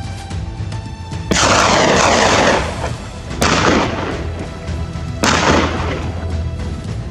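Three loud gunshots, each followed by about a second of rolling echo, spaced about two seconds apart, over steady background music.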